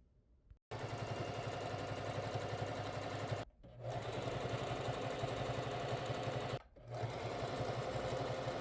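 Singer 3323 household sewing machine running at a steady speed, stopping briefly twice and starting again each time.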